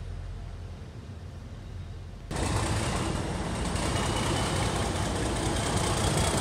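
Low, quiet rumble of a distant train, then, from about two seconds in, the much louder running of a Class 37 diesel locomotive's English Electric V12 engine as it comes into the platform.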